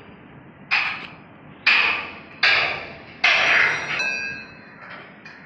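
Four hammer blows on steel on a Sany SR235 piling rig's mast, about one a second, each a sharp metallic clang; the last one rings on briefly.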